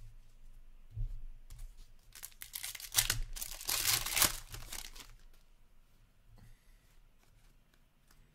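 Foil trading card pack wrapper torn open and crinkled by hand: a loud crackling tear about two seconds in lasting a few seconds, then softer, scattered crinkles of the wrapper.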